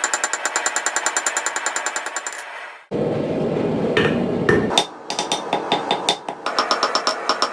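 Rapid, evenly spaced hammer blows on steel, about ten a second, each ringing. After a couple of seconds they stop for a break that holds a short burst of noise and a few separate knocks. About six and a half seconds in, the fast blows resume with a different ring.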